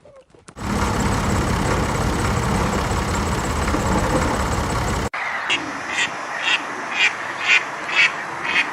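A loud, steady noise that cuts off sharply about five seconds in, followed by a duck quacking in a regular series of about two quacks a second.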